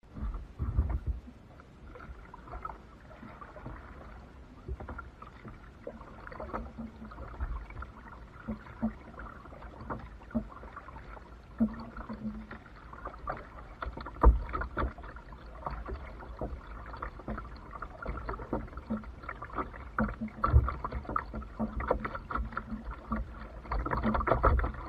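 Paddling a plastic Pelican kayak on calm water: irregular paddle splashes and water lapping at the hull over a low rumble, with occasional sharp knocks, the loudest about a second in, around the middle, and a few seconds later.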